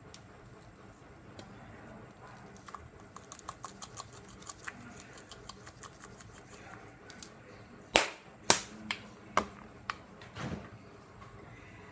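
A plastic garlic powder shaker worked over a metal bowl: a run of light, rapid ticking, then several sharp clicks and knocks about eight seconds in, the first two the loudest.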